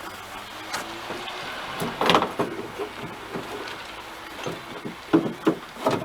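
Knocks and clicks of parts being handled while fitting a rear window wiper motor: one loud knock about two seconds in, scattered light clicks, then three sharper knocks in quick succession near the end.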